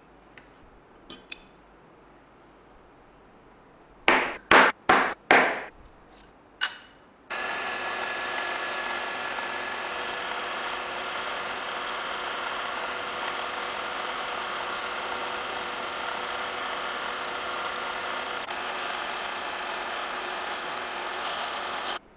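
Four sharp strikes in quick succession and one more shortly after, then a drill press running steadily as its bit cuts into a metal bar, stopping abruptly near the end.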